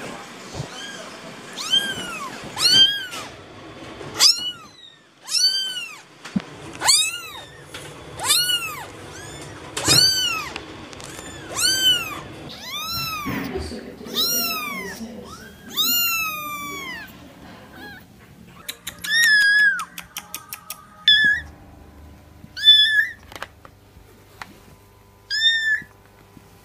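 Young kittens mewing over and over, high mews that rise and fall, about one a second. In the last third come shorter, sharper mews a second or two apart, after a quick run of clicks.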